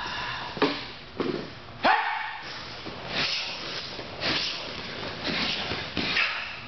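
Martial artists performing a form in unison: a sharp shout (kiap) about two seconds in, the loudest sound, among short snaps and thuds of uniforms and feet on the mats, roughly once a second.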